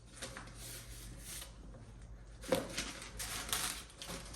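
Household objects being handled: soft rustling, then a sharp knock about two and a half seconds in, followed by more rustling and light clatter.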